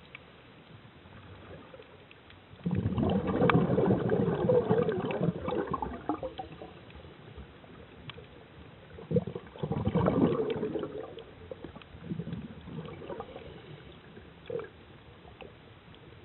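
Scuba diver's exhaled regulator bubbles gurgling, recorded underwater: a loud burst of bubbles about three seconds in that lasts about three seconds, a second burst about ten seconds in, and a weaker one after it, with a faint steady hiss in between.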